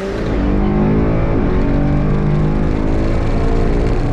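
BMW M5 CS (F90) twin-turbo V8 running hard under load on a drag run. Its note dips and climbs again about a second and a half in, and drops near the end.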